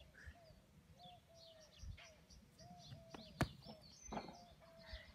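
Birds calling in the background, short notes repeated over and over, with one sharp click a little after three seconds.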